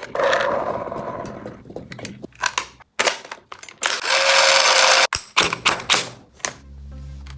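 Electric toy gel blaster in HK416 style firing two bursts, a whirring mechanical rattle with a steady whine: one for about two seconds at the start and another of about a second some four seconds in. Sharp clicks of the blaster being handled come in between. Music comes in near the end.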